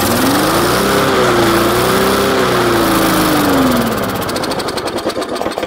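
Single-cylinder lawn mower engine, a 3.75 hp push-mower motor, running on straight rubbing alcohol just after starting. It speeds up in the first second, holds, then slows from about three seconds in and runs more unevenly toward the end.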